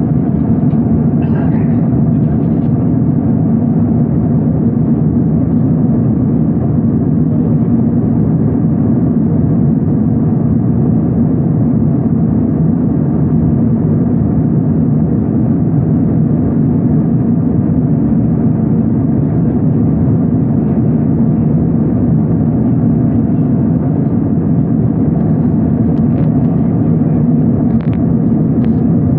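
Steady, unbroken drone of a jet airliner in flight, heard inside the cabin: engine and airflow noise, heavy and low, with a faint steady hum under it.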